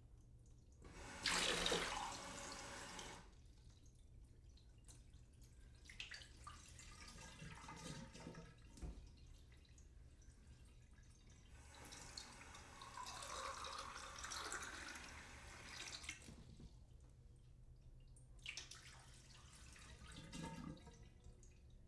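Water from a sink tap filling a drinking glass: a strong gush about a second in, a few small clicks and drips, then a longer spell of running water in the middle and a shorter one near the end, over a steady low hum.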